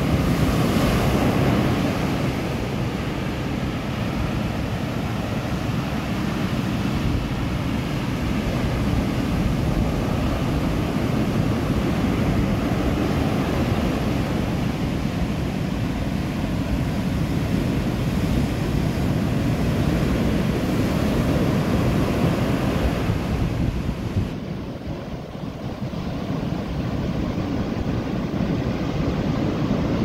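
Large ocean waves breaking and washing up a sand beach, a steady loud wash of surf, with wind on the microphone. The sound dips briefly about 25 seconds in.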